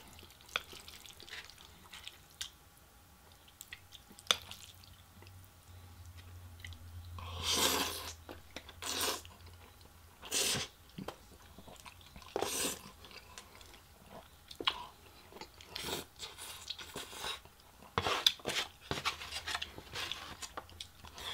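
A person eating black bean noodles (jajangmyeon): chewing, with a string of short, wet slurps as mouthfuls of noodles are sucked in, starting several seconds in and coming every second or two.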